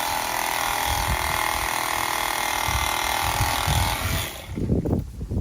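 A power tool running steadily, cutting plastic pool-jet fittings, stops suddenly about four seconds in; a few low thumps follow.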